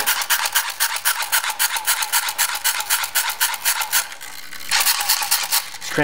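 Hand-crank LED flashlight being wound: its crank turns the gear train and small dynamo with a rapid, even whirring rattle, charging it and lighting the LED. The cranking eases off briefly about four seconds in, then picks up again.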